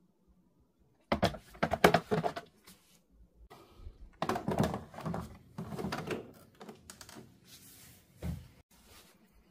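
Hard plastic clattering, clicking and knocking as the drip tray with its coffee-grounds bin is handled and slid back into a Philips automatic espresso machine, in two bursts, with a dull thump near the end as it seats.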